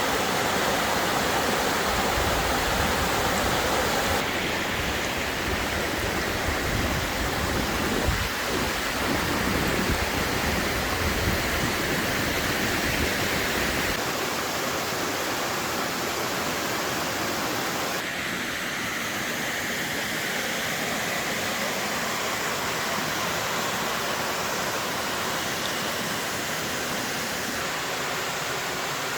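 Steady rushing of a small waterfall's falling water, its balance shifting abruptly a few times. A low rumble runs under the water through the first half and stops about halfway through.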